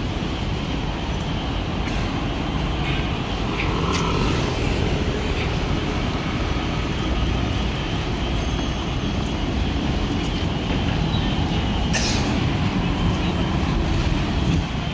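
Steady rumble of passing vehicles on a city street, with a sharp click about four seconds in and another about twelve seconds in.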